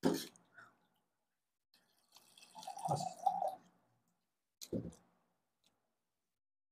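Water poured from a jug into a glass mug, a splashing pour lasting about a second and a half, starting about two seconds in. Short, separate sounds come just before and after it.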